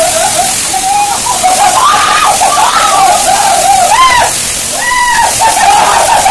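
A waterfall pours down a narrow rock cleft onto bathers, a steady hiss of falling water and splashing. Over it come people's raised, drawn-out, wavering voices, louder than the water.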